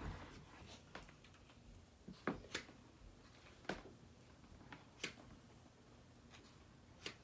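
Faint, sharp clicks of a flat iron's plates closing on sections of hair, about six of them at irregular times, over a low steady hum.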